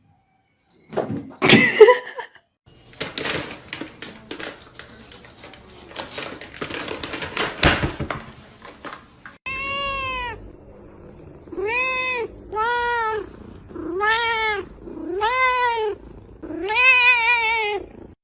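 A cat meowing five times in the second half, each call rising then falling in pitch, the last one longest and wavering. Before the meows comes a sudden loud sound and then several seconds of rustling and clattering.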